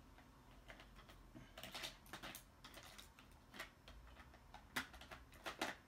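Faint, scattered light clicks and taps of hand tools being handled on a workbench as a screwdriver is fetched, with a cluster about two seconds in and a few sharper ones near the end.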